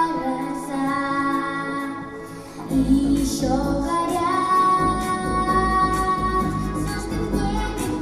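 A female voice singing a song with instrumental accompaniment, holding long notes; deep bass comes in about three seconds in.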